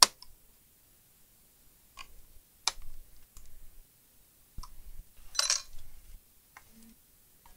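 Plastic clips of a laptop's palmrest top case clicking as it is pried open by hand: a few sharp clicks spread out, with a longer crackling snap about five and a half seconds in.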